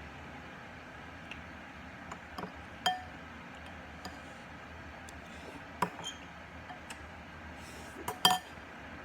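A few sharp, ringing clinks, like glass or dishes knocking together, over a steady hiss; the loudest comes about three seconds in and there are two more near the end.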